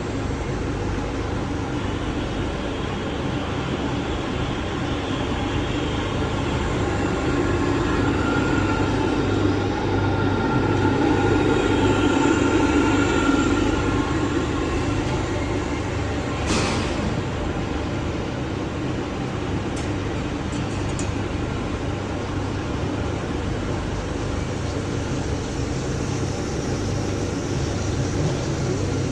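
Swiss-type CNC lathe running, a steady mechanical noise with a low hum. It grows louder for several seconds near the middle with a faint whine, and there is a single sharp click a little past halfway.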